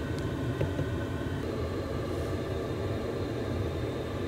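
Steady low mechanical rumble, even throughout.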